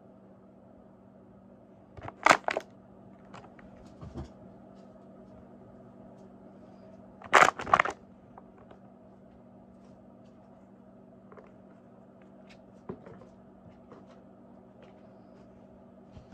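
Thin plastic water bottles crinkling and crackling as they are handled, in two loud bursts about two seconds in and again about seven seconds in, with a few faint taps and rustles between. A faint steady low hum runs underneath.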